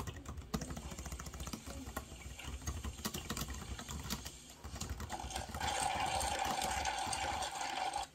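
Rapid typing on a compact low-profile keyboard, a dense run of soft key clicks. A little over halfway through a steady rushing noise comes in under the typing and stops suddenly near the end.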